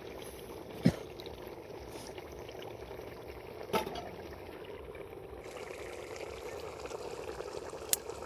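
A pot of curry bubbling steadily over the fire, with three short sharp knocks spread across it.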